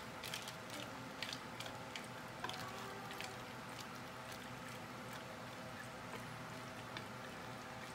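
Wooden spoon stirring egg noodles in a stainless steel pot of boiling water: soft sloshing with light clicks and knocks of the spoon against the pan, most frequent in the first few seconds, over a steady low hum.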